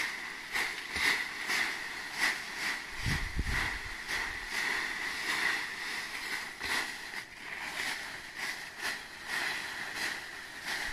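Long-handled rake beating and scraping through dry coffee-tree leaf litter on the ground, about two strokes a second, shaking the fallen coffee beans out of the leaves.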